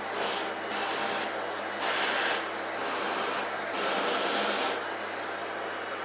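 Agaro Twister 2200-watt canister vacuum cleaner running just after being switched on: a steady motor hum with an airy suction hiss that swells and fades several times.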